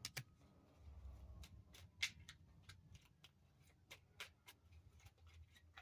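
A deck of oracle cards being shuffled by hand: faint, irregular light clicks and snaps of card edges. In the first couple of seconds a faint siren falls slowly in pitch, which the reader takes for an ambulance.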